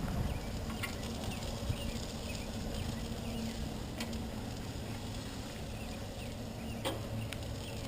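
Outdoor background: a steady low rumble with a few sharp clicks and faint bird chirps.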